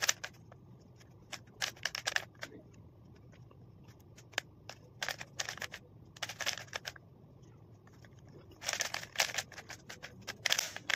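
Plastic 3×3 Rubik's cube being turned by hand: its layers click and rattle in quick bursts of several turns, with short pauses between the bursts.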